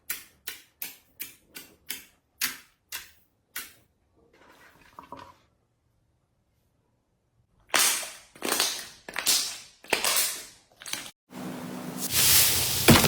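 Slime being handled for ASMR: a quick run of sharp popping clicks, about three a second. After a pause come longer noisy strokes, running into a steady noise near the end.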